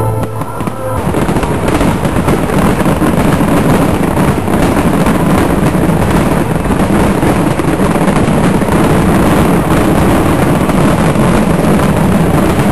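Fireworks going off in a rapid, continuous barrage of crackling bursts and bangs, merging into one loud, dense rumble after the show's rock music cuts out about a second in.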